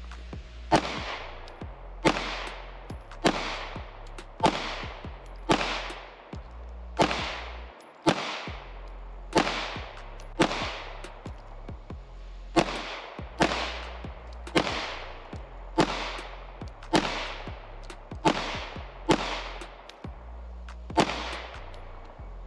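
Glock 19X 9mm pistol fired in a slow, steady string of about seventeen shots, roughly one a second, each shot trailing off in a ringing echo. Background music with a steady bass line plays underneath.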